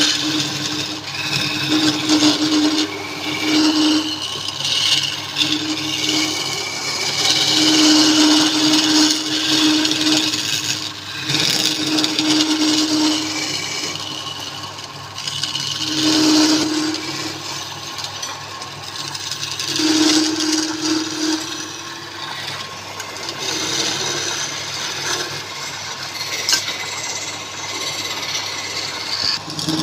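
Wood lathe running while a turning tool scrapes and cuts the spinning wood. The scraping comes and goes in stretches as the tool is pressed in and eased off.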